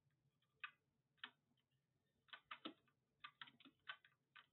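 Faint keystrokes on a computer keyboard: two single taps, then short quick runs of keys in the second half.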